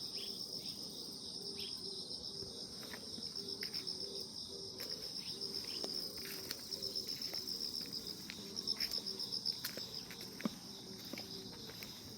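Grass insects chirping in a steady high pulsing trill, with a lower repeated pulsing note and scattered faint ticks.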